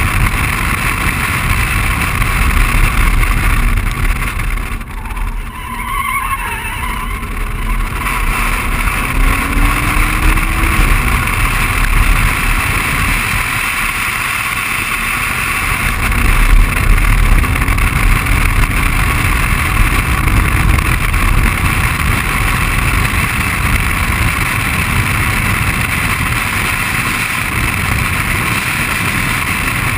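BMW 135i's turbocharged straight-six engine and wind and road noise heard from inside the cabin at track speed. It eases off for a few seconds about five seconds in, then pulls back up, with the engine pitch rising again.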